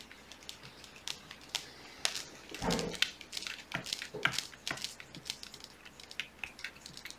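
Screwdriver turning Torx screws into the metal body of a SIKA P40.2 hand test pump: scattered small clicks and scrapes, with one louder bump about two and a half seconds in.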